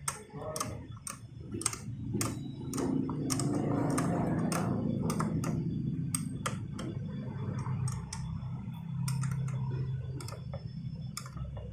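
Hand tools clicking and tapping on metal at irregular intervals, roughly one or two a second, over a low steady hum.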